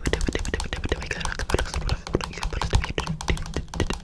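Rapid, irregular clicking and tapping, many sharp clicks close together over a low rumble.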